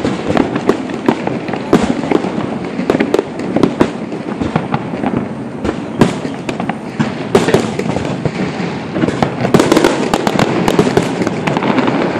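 Fireworks going off in quick succession: a dense, unbroken run of bangs and crackles, thickest a few seconds before the end.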